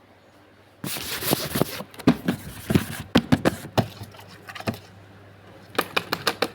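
Close-up rubbing and scraping: a burst of rubbing about a second in, then a quick series of sharp scratches and taps, a short lull, and another fast run of scratches near the end.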